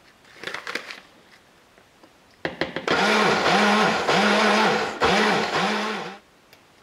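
Breville personal blender blending rolled oats, banana and soya milk into oat pancake batter: it starts about three seconds in, runs for about three seconds with its pitch rising and dipping about five times, stops briefly and runs once more before cutting off. A few light clicks come just before it starts.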